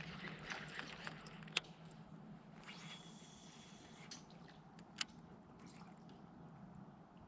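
Faint water sounds of small drips and splashes, with a few sharp clicks and a brief hiss about three seconds in.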